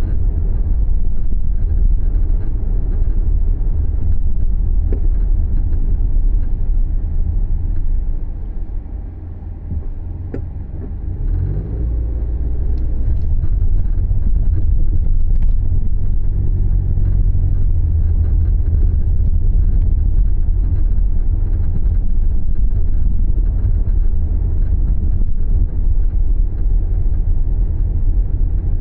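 Low driving rumble of a Subaru Levorg on the move, the noise the owner is recording as an abnormal noise while driving. It eases off about eight seconds in and builds again with a rising tone a few seconds later.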